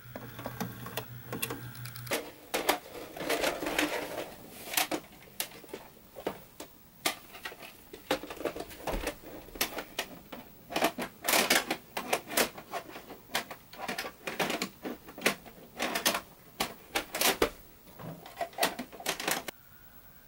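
A VHS cassette and VCR being handled and loaded: a long, irregular run of sharp plastic clicks and knocks, with a low hum under the first two seconds. The clicking cuts off suddenly near the end.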